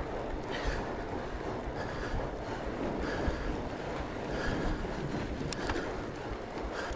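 Wind rushing over the microphone and fat-bike tyres rolling on the trail as the rider pedals hard, a steady rush with a faint swish that returns about every second.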